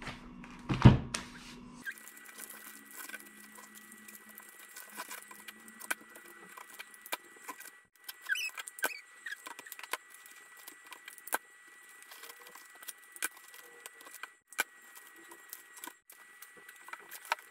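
Gift wrapping heard sped up: rapid crackling and ticking of wrapping paper being folded and handled, with a thin steady whine underneath and a few short squeaky chirps near the middle. One loud knock about a second in.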